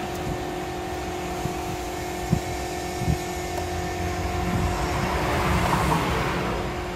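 A few light clicks as a thin metal pry tool works at an Acer Aspire E1-431 laptop keyboard, over a steady background hum. A broad rumble swells from about four seconds in and eases off near the end.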